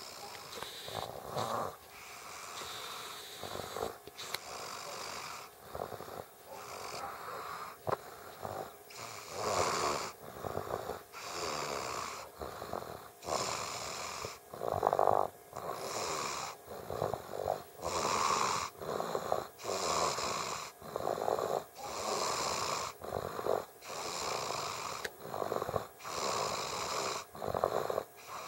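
A small child snoring in her sleep, a rasping snore on each breath every second or two, softer at first and louder from about nine seconds in.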